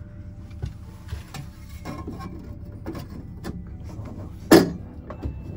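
Stainless steel stove flue pipe being handled and pushed up into its ceiling collar: small knocks and clicks, then a short, loud scrape about four and a half seconds in.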